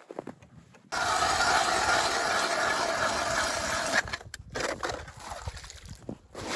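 Ice auger boring a hole through lake ice: a loud steady noise that starts abruptly about a second in and stops about three seconds later, followed by quieter scraping.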